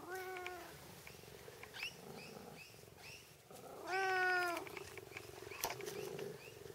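Tonkinese cat meowing twice: a short meow at the start and a louder, longer meow about four seconds in.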